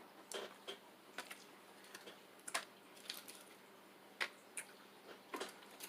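Eating noises from a seafood boil: about eight scattered, sharp clicks and cracks of shells and food being handled and bitten close to the microphone.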